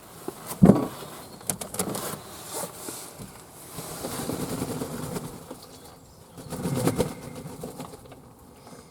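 Fantail doves moving about with bursts of wing flapping, the loudest just under a second in and again around seven seconds.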